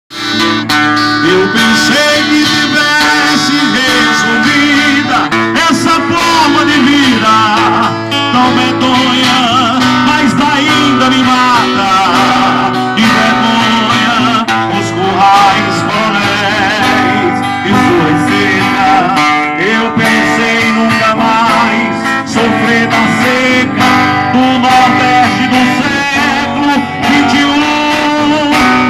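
Acoustic guitar music playing continuously, strummed and plucked, with a voice singing along in places.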